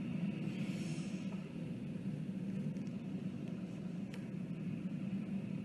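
Recorded sea waves playing as a steady wash of surf sound, with one short click about four seconds in.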